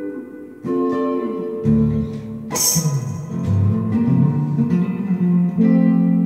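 Stratocaster-style electric guitar played solo, mixing single notes and chords, with a sharp scratchy strum about two and a half seconds in and a chord left ringing near the end.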